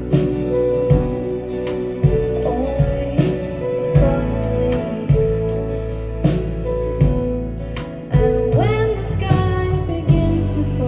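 Recorded music played through Marten hi-fi loudspeakers: sustained instrumental notes over a slow, steady beat of about one hit a second, with a rising sliding note near the end.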